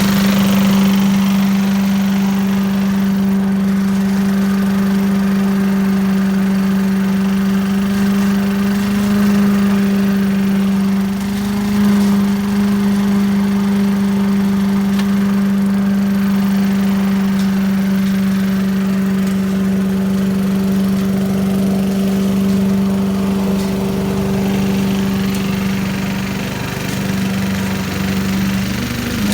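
Small engine of a 1980s Billy Goat lawn vacuum running smoothly at a constant speed, a steady drone with no revving.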